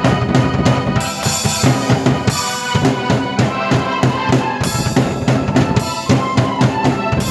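Drum kit and keyboard played together by one performer: bass drum, snare and rimshots drive a busy beat under sustained keyboard chords and melody.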